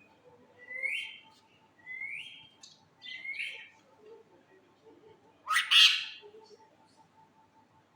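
A pet parrot calling: three short calls about a second apart, each rising in pitch, then a loud harsh squawk about five and a half seconds in.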